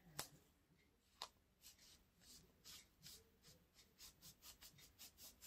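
Faint rubbing strokes of gloved hands pressing and smoothing the back of a canvas laid face down on paint-covered bubble wrap. There is a sharp click at the start and another about a second in, and the strokes come quicker and more evenly near the end.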